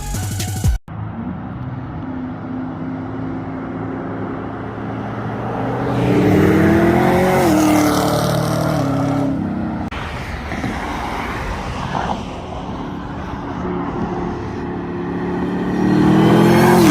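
Chevrolet Camaro ZL1's supercharged V8 running and revving. Its pitch climbs and falls back about six seconds in, then climbs again near the end.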